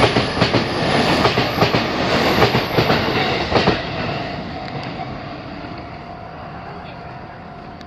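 Electric commuter train passing close by, its wheels clacking in a quick rhythm over rail joints. About four seconds in the clacking stops and the rumble fades away as the train moves off.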